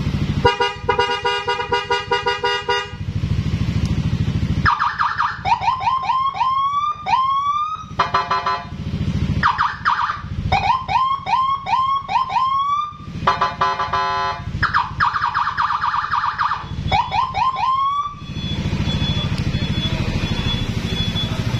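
Electronic police-escort siren fitted to a Yamaha NMAX scooter, switching between patterns: a steady multi-tone blare first, then repeated quick rising whoops alternating with steady tone bursts. It stops about 18 seconds in, leaving the scooter's engine idling underneath.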